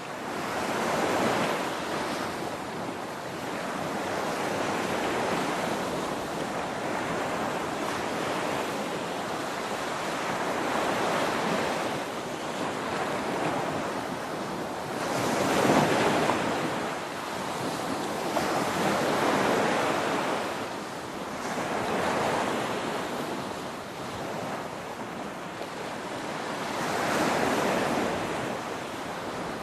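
Ocean surf breaking on a shore: a continuous wash of water that swells and recedes every few seconds as each wave crashes, the biggest wave about halfway through.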